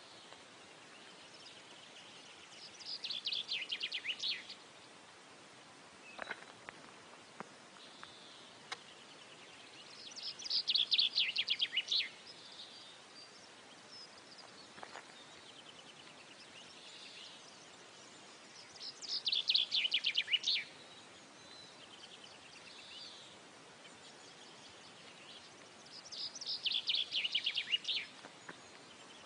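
A bird trilling in four short bursts of rapid high chirps, each lasting about two seconds and dropping slightly in pitch, over a faint steady hiss.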